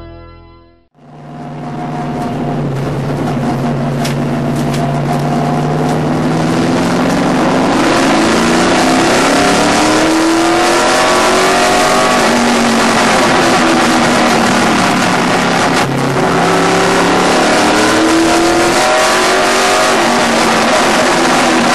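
Limited Late Model stock car's V8 engine heard from inside the car at racing speed, its pitch holding steady at first and then rising and falling as the driver gets on and off the throttle, over a loud rush of wind and road noise.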